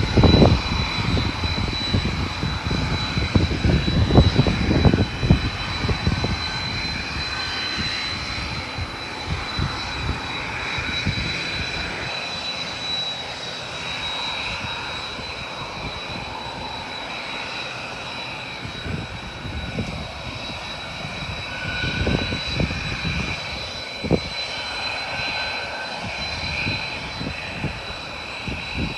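Airliner engines running on the airfield with a steady high-pitched whine, over an irregular low buffeting that is heaviest in the first six seconds.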